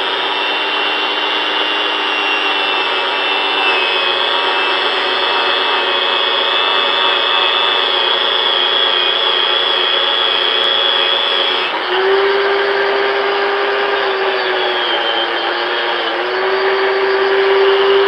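Angle grinder running with a buffing wheel pressed against the lip of an aluminum wheel rim, polishing out gouges: a steady high motor whine over a rubbing hiss. About twelve seconds in, the whine changes pitch abruptly and a lower steady tone comes up.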